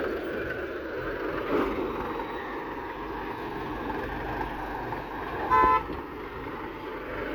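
Heavy machinery engines running steadily, with one short vehicle horn toot about five and a half seconds in.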